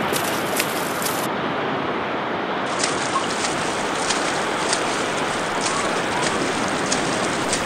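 Sea surf washing and breaking steadily, with short splashes every half-second or so as a person wades through the shallows.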